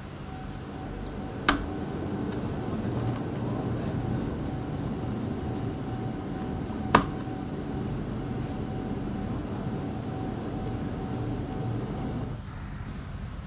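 Two sharp clicks about five and a half seconds apart as parts are fitted into a chainsaw's plastic housing. Under them runs a steady low motor-like rumble with a thin steady whine, which stops shortly before the end.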